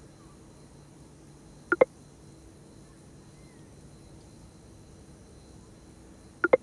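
A short double-pop text-message notification sound plays twice, about five seconds apart, over a low steady hum.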